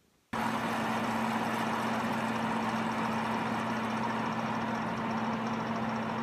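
A machine running steadily: an even rushing noise over a low, constant hum. It switches on abruptly a moment in.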